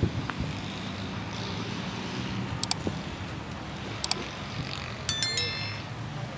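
Outdoor city ambience: a steady low hum of distant traffic, with a few sharp clicks and a brief high ringing about five seconds in.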